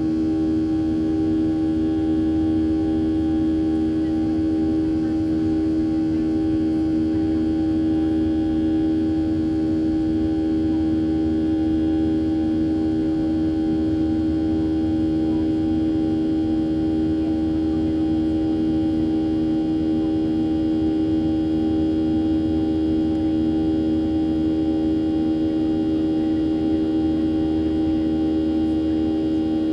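Boeing 737 jet engine drone heard inside the cabin during the climb after takeoff: a steady hum with one strong low tone and its overtones over a rushing noise.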